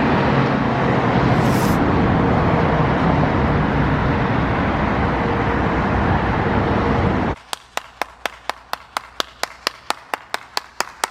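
Steady rushing road noise of a car in motion. About seven seconds in it cuts off suddenly, giving way to a run of quick, even clicks, about five a second.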